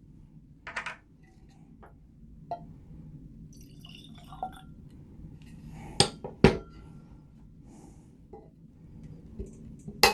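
Rye whiskey poured from a bottle into a glass, with sharp glass clinks twice about six seconds in and once more near the end.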